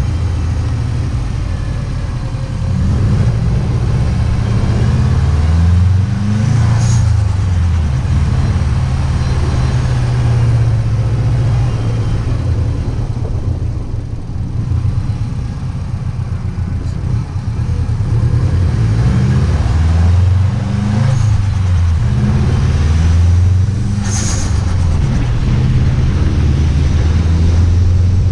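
Subaru WRX STi's turbocharged flat-four engine and exhaust pulling hard twice, the revs climbing and dropping back at shifts. Each pull ends with a short burst of turbo flutter as the throttle closes.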